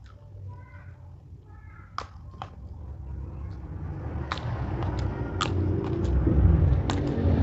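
Chewing with crisp crunching bites of raw vegetables. A couple of crunches come about two seconds in, then they grow louder and more frequent from about four seconds on, over a steady wet chewing sound.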